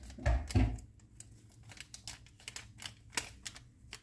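Handling noises at the stove: two dull thumps near the start, then a run of light, irregular clicks and taps.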